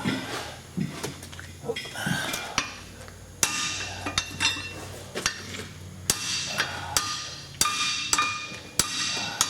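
A 2-pound hammer striking the stuck rear hub and rotor assembly of a Chevrolet 3500HD again and again to break it loose: sharp metal-on-metal blows about once a second, each with a short ring.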